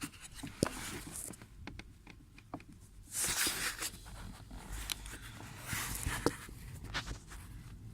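Irregular sharp clicks and knocks from a Toyota Avensis T27's intermediate shaft, the knock being checked, with two longer rustling bursts about three and six seconds in.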